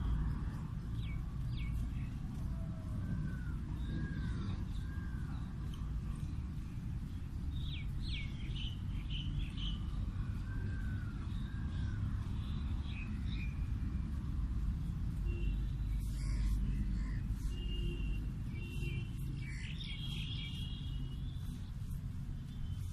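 Several small birds chirping and calling in short arched and rising-falling notes, scattered through the stretch and busiest in the second half, over a steady low background rumble.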